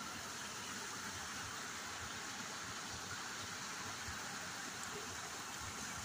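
Small waterfall spilling over boulders into a rocky pool: a steady rush of falling and churning water.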